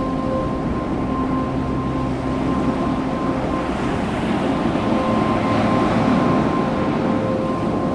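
Ocean surf and wind on the microphone, a steady rushing noise, with a few sustained steady tones over it that break off briefly near the middle and come back.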